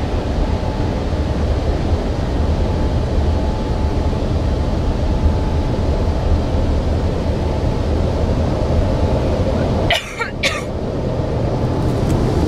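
Automatic car-wash brush and water spray heard from inside the car: a steady, loud scrubbing rumble as the rotating brush passes over the body. About ten seconds in, two short sharp sounds close by.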